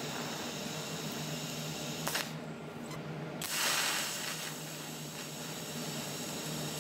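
TIG welding arc on sheet steel, hissing steadily with a low hum under it as a small hole in a door panel is filled with weld. About two seconds in the hiss breaks off for about a second, then comes back louder.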